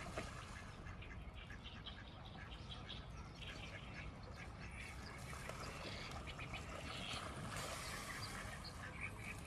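Ducks and geese calling, many short quacks and chirps scattered throughout, over a steady low background rumble.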